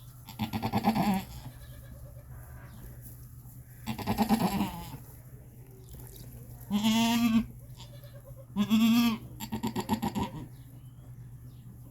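Goats bleating: five drawn-out calls, some with a quavering tremble.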